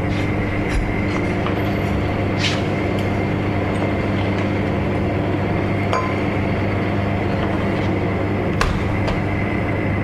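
Steady low electrical hum of refrigerated drinks display fridges, with a few sharp clinks and knocks of glass bottles being handled.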